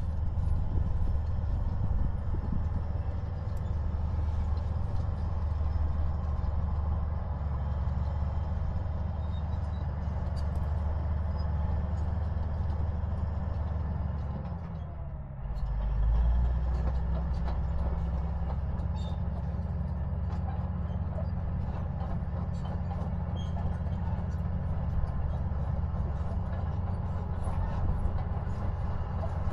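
Diesel engine of a crawler bulldozer running steadily as it works, a low rumble that dips briefly about halfway and then comes back stronger.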